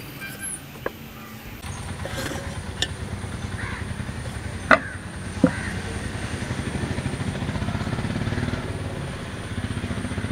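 Sharp clinks of a steel cake pot and knife as a baked cake is freed and turned out onto a glass plate; the loudest two knocks come about halfway through. Under them a steady low engine rumble starts after a couple of seconds and slowly builds.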